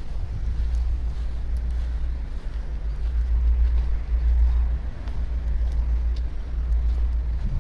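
A low outdoor rumble that wavers in level throughout, with a few faint ticks over it.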